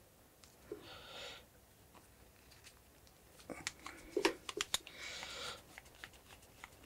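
Light metal clicks and taps from a screwdriver working on the metal desoldering handpiece while a screw is fitted, with a quick run of sharp clicks a little past the middle. Two short breaths, one about a second in and one about five seconds in.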